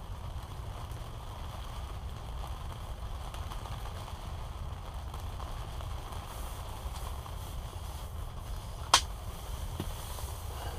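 Steady low rumble, with one sharp click about nine seconds in.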